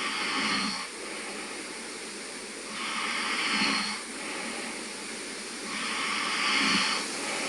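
A sleeping man snoring: three raspy breaths about three seconds apart, each ending in a short low snore.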